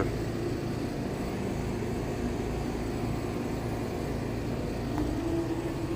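American Standard Silver Series 15 three-ton outdoor air-conditioner condenser running: a steady, even hum from the compressor and condenser fan.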